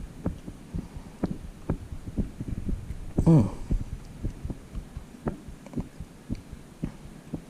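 Soft irregular thumps and knocks, a couple each second, from handling close to the microphone while a freshly caught bass is held. A short falling voice sound, like a grunt, comes a little over three seconds in.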